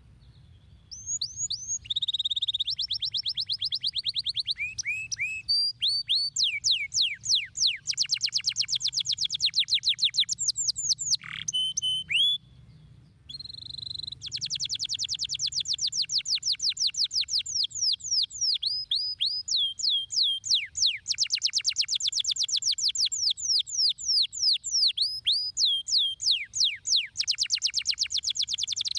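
Domestic canary singing: long, fast trills of repeated downward-sweeping high notes, changing from one trill to the next, with a brief pause about halfway through.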